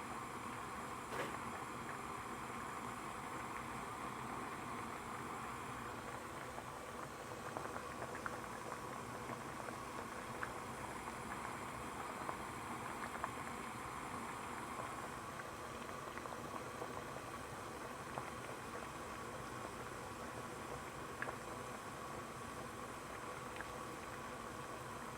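Water boiling, bubbling steadily, with scattered small pops.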